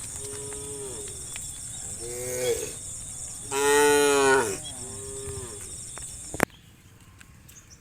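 Cows mooing, four calls in turn, the third the loudest and longest, over a steady high-pitched hiss. A sharp click comes about six and a half seconds in, and only faint background is left after it.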